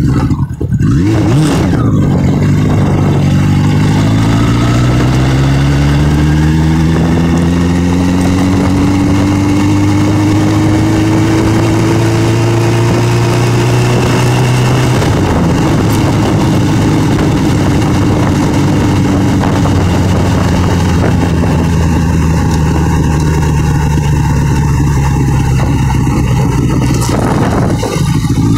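Motorcycle engine running while under way, its note rising slowly through the first half as the bike gathers speed, then dropping suddenly about halfway and holding lower.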